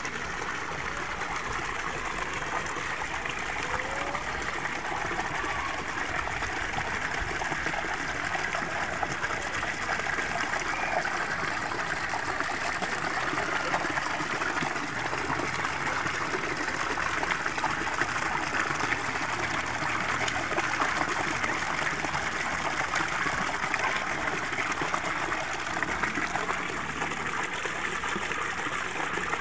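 Water pouring from a glazed clay jar and splashing down over the rocks of a garden rock fountain: a steady, even rush of falling and trickling water.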